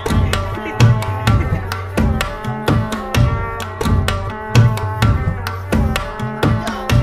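Music with a steady percussion beat and sustained pitched instrument tones.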